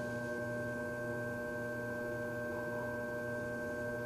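Electric potter's wheel motor humming steadily at a constant speed, several steady tones over a low drone.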